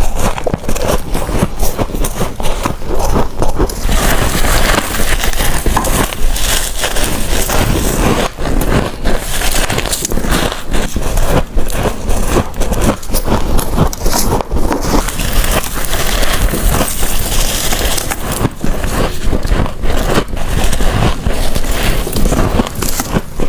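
Close-miked biting and chewing of freezer frost, a constant crunching and crackling of packed ice crystals.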